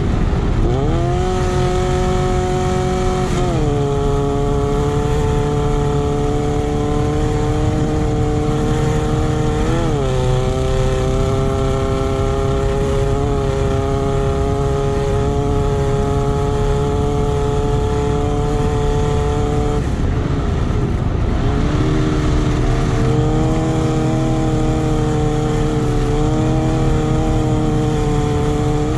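Off-road race buggy's engine pulling hard in a flat-out run. Its note holds steady between gear changes and drops at the shifts, a few seconds in and about ten seconds in. Around twenty seconds in the engine note falls away for a couple of seconds, then comes back and climbs again, all over a constant low rumble of wind and the buggy running on dirt.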